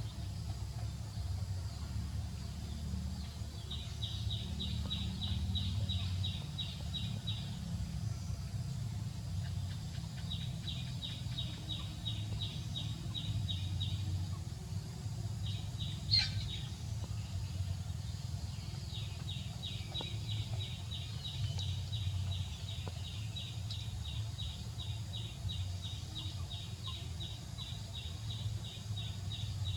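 Rapid, evenly spaced high chirps, about four a second, in bouts lasting several seconds, over a steady low hum. A single sharp click comes about sixteen seconds in.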